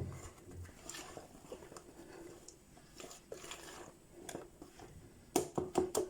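Cake batter being folded in a bowl with a spatula or spoon: faint soft squishing and scraping, with a quick run of sharp clicks and knocks against the bowl near the end.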